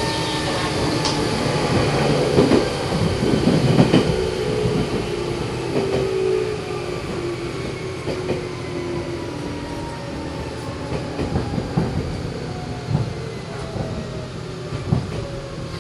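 Meitetsu 6000 series (first batch) electric train running, with the whine of its resistance-controlled traction motors and gears sliding slowly down in pitch as the train slows. Wheel clicks over rail joints sound now and then.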